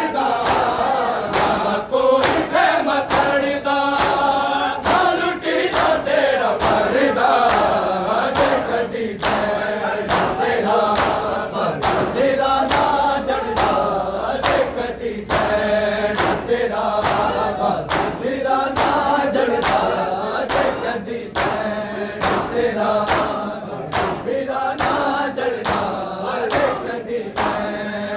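A group of men chanting a Shia noha (lament) in unison. It is kept in time by a steady beat of sharp slaps from many hands striking bare chests in matam.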